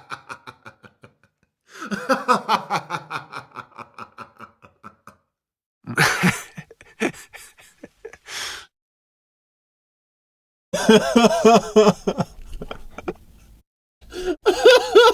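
A string of separate men's laughs, each a few seconds long with short silent gaps between them: rapid rhythmic ha-ha pulses, one of them breathy and wheezing midway.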